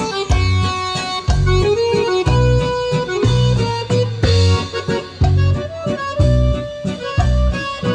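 Cumbia dance music played loud over PA loudspeakers, with a steady, even bass beat.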